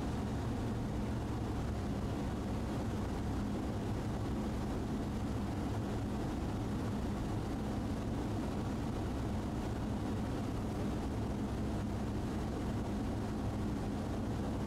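Steady drone of a Sling light aircraft's piston engine and propeller in flight, heard inside the cockpit.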